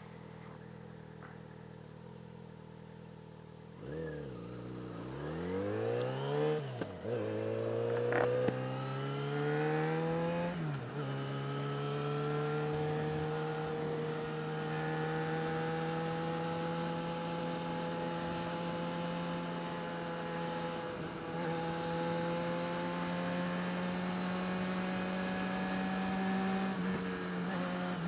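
Yamaha XJ6 motorcycle's inline-four engine idling steadily, then pulling away about four seconds in: it revs up and drops back several times as it shifts up through the gears, then settles to a steady cruising note. Heard from the rider's helmet camera.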